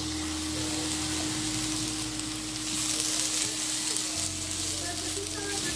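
Chicken strips sizzling steadily in oil in a nonstick frying pan, stirred with a wooden spoon.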